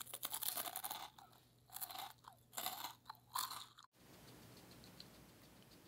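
Close-miked crunchy chewing of roasted vegetables, in four loud crackly bursts. It cuts off just before four seconds in, leaving a faint hiss with a few soft ticks.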